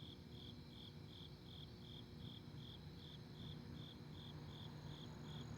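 Single cricket chirping steadily and faintly, evenly spaced high chirps about two and a half times a second, over a faint low rumble.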